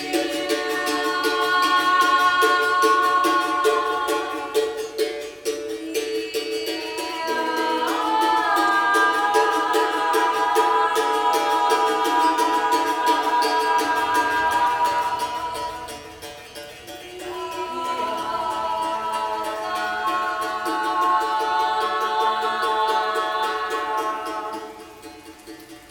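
Improvised music: voices holding long sung notes in harmony, moving to a new chord twice, over plucked strings. It dips briefly past the middle and fades near the end.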